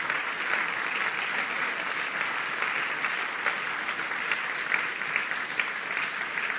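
Audience applauding steadily, many hands clapping.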